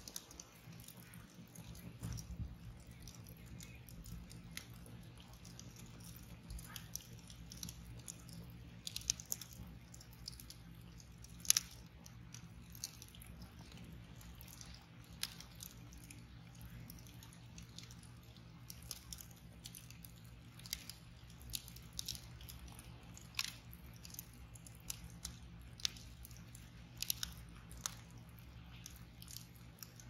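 Wood fire crackling: a log burning on glowing embers gives off scattered, irregular snaps and pops, the sharpest about eleven seconds in.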